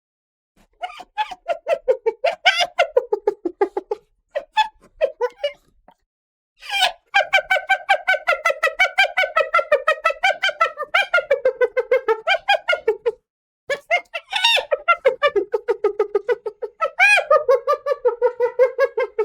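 Hyena laughing: bouts of fast, stuttering pulsed calls whose pitch wavers up and down, the longest run lasting about six seconds, broken by short pauses.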